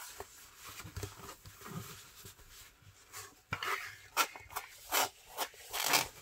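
A rolled diamond painting canvas being unrolled and pressed flat by hand: the stiff canvas and its cover sheet rubbing and rustling, faintly at first, then in several short, louder rustles in the second half.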